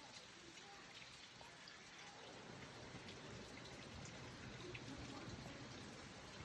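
Faint, steady rush of falling water from a distant waterfall, swelling slightly about two and a half seconds in.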